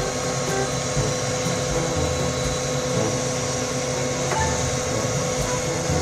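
Fire engine's aerial ladder platform running: a steady mechanical hum and hiss with a constant whine, from the truck's engine driving the ladder's hydraulics.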